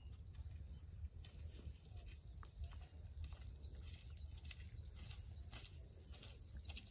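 Small birds chirping faintly, with a quick run of short rising chirps in the second half, over a low steady rumble.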